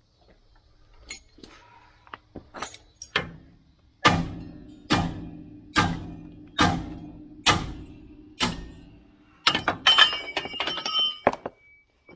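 A hammer striking a steel separator tool wedged into the front spindle's ball joint to pop it loose. A few light taps come first, then six hard, ringing blows about a second apart, then a quick flurry of metal clanks and clinks.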